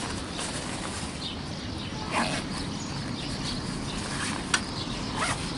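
Nylon fabric of a carp cradle's sling rustling as it is folded and handled, with a sharp click about four and a half seconds in, over a steady background rush.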